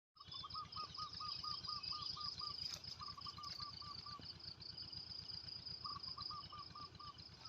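Faint outdoor ambience: a steady high insect trill, with a bird repeating a short call note about five times a second in three runs.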